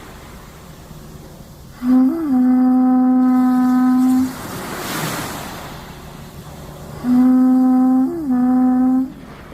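Horagai (Yamabushi conch-shell trumpet) blown in two long, steady blasts, a few seconds apart. Each note jumps briefly up in pitch shortly after it starts, then settles back.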